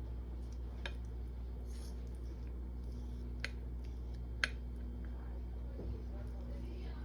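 Three sharp clinks of kitchen utensils against cookware over a steady low hum, the last one, about four and a half seconds in, the loudest.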